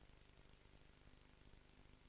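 Near silence: a faint, steady hiss with a low hum.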